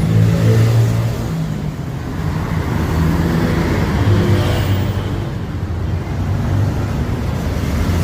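Street traffic: motor vehicle engines running with a steady low hum that swells and eases, over general street noise.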